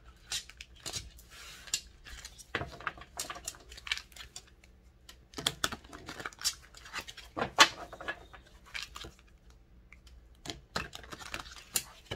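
Tarot cards being shuffled and handled: irregular sharp snaps and taps with a few short stretches of rustling.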